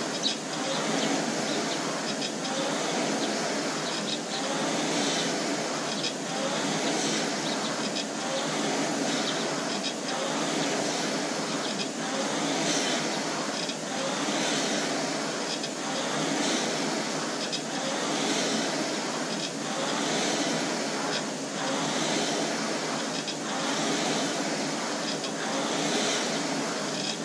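Concept2 rowing machine's air-resistance flywheel whooshing, surging with each drive stroke and easing on the recovery, about one stroke every two seconds at a hard, steady test pace.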